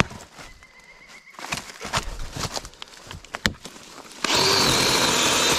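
Scattered snaps and knocks of brush being handled, then a little over four seconds in a battery chainsaw starts suddenly and runs at full speed, a steady sound with a high whine.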